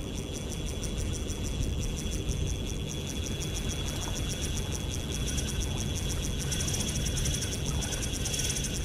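Shimano Stradic CI4+ 1000 spinning reel's drag clicking rapidly as a hooked trevally runs and strips line, the clicking growing louder about two-thirds of the way in. A low rumble of wind runs beneath it.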